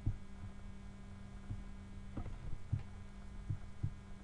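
Steady low electrical hum with a few faint, scattered clicks and knocks.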